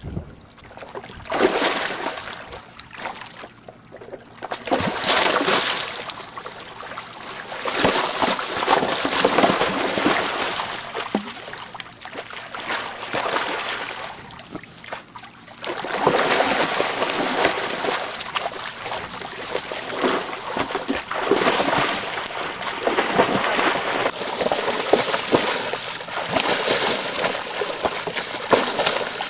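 Water splashing and sloshing in a round galvanized stock tank as a white tiger thrashes and plays in it. The splashing comes in repeated bursts, with the longest busy stretch in the second half.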